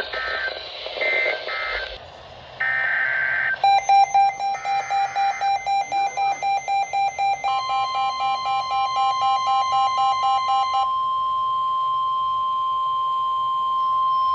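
Emergency alert tones. First come a few short, harsh bursts of SAME digital header data. Then an electronic alarm beeps about four times a second, and about halfway through the steady 1050 Hz weather-radio warning alarm tone joins it; the tone carries on alone after the beeping stops, near the end.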